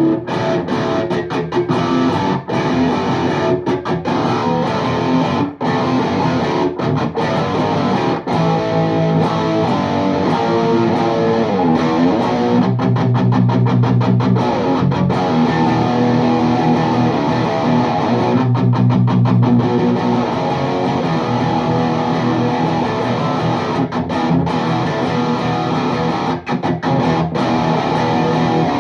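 Heavily distorted electric guitar through a VHT Deliverance D60 tube amp with two KT88 power tubes, a Les Paul Custom played into a 4x12 cabinet with Vintage 30 speakers. It plays high-gain riffs chopped by many short, sudden stops, with held chords ringing out about 13 and 19 seconds in.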